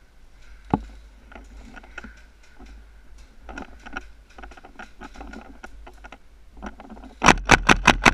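Light scuffs and knocks of a player moving, then near the end a rapid string of loud shots, about seven a second, from a KWA MAC-11 gas blowback airsoft submachine gun.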